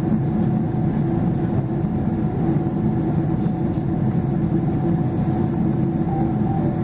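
Steady cabin drone of a Boeing 777-200LR's GE90 engines and airflow, heard inside the cabin in flight, with a steady low hum running through it.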